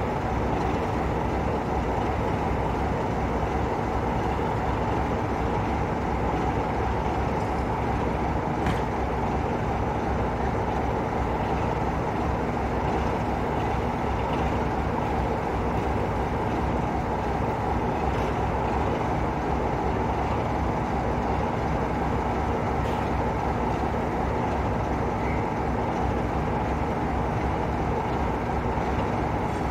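Class 33 diesel-electric locomotive's Sulzer eight-cylinder engine idling steadily while standing at the platform.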